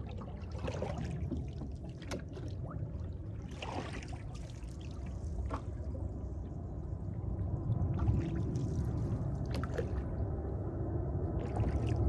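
Oars of a wooden rowboat dipping and pulling through calm water, a short splash and drip about every two seconds, with water trickling along the hull over a low steady rumble.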